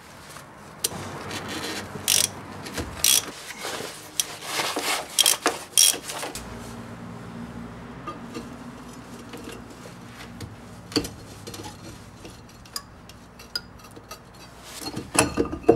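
Ratchet wrench with a 3/8 hex-bit socket working the front brake caliper bolts loose: scattered metallic clicks and knocks, busiest in the first half, with a low steady hum underneath from about halfway.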